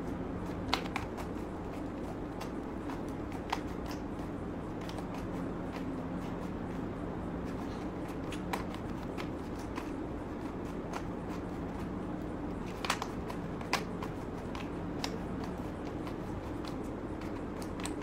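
A plastic 3x3 Rubik's cube being turned by hand: scattered light clicks of the faces turning, with a few sharper clacks, over a steady low hum.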